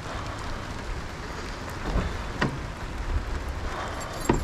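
Pouring rain falling on a car and wet pavement, a steady hiss, with a few light clicks about two seconds in and a sharper click near the end.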